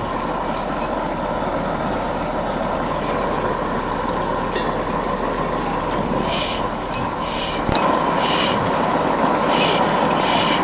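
Steady hiss of the hot air engine's burner as the engine warms up, before it has been started. From about six seconds in, a run of short rasping rubs comes over it, half a dozen in a few seconds.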